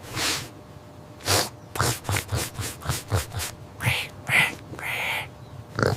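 A cartoon character sniffing and drawing breath through the nose, the lead-up to a sneeze. A quick run of short sniffs is followed by several longer, breathy in-breaths, with a stronger one at the end.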